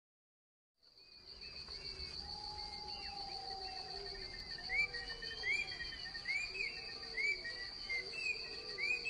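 Field ambience: a steady high insect trill, cricket-like, starting about a second in, with repeated short rising chirps and lower calls over it.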